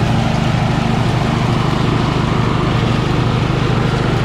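Engine running steadily at a constant speed, with an even, unchanging pitch.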